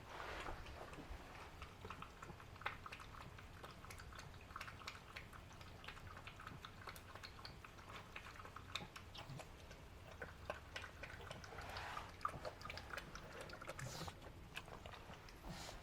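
Pug puppy making faint, irregular clicking mouth noises and snuffles, with a few louder breathy snuffles near the end.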